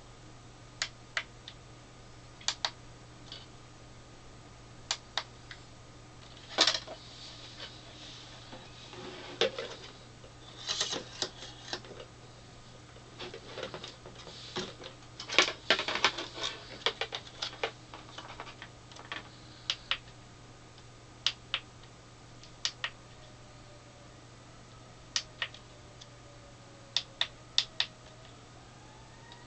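Scattered sharp plastic clicks and taps as a Sylvania SRT702A 7-inch portable LCD TV and its mount are handled and fitted together. Denser rattling and scraping come about seven seconds in and again through the middle, over a steady low hum, and a faint rising tone sounds at the very end.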